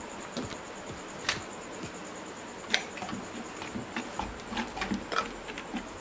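Wooden spatula starting to stir thick gravy in a clay pot: two single sharp clicks, then from about halfway a quick run of light knocks and scrapes against the pot. A faint steady high whine sits underneath.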